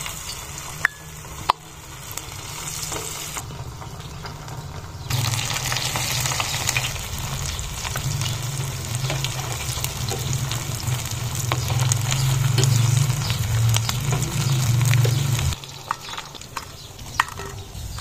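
Chicken pakora pieces deep-frying in hot oil in a steel pot: a steady sizzle and bubbling over a low steady hum, louder through the middle, with a couple of sharp taps near the start.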